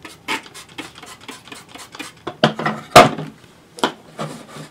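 Plastic parts of a TOMY Lay an Egg toy being handled and knocked on a tabletop: a run of light clicks and clatters, with a sharp knock about three seconds in, alongside short squirts from a spray bottle as cleaner goes onto the green plastic top.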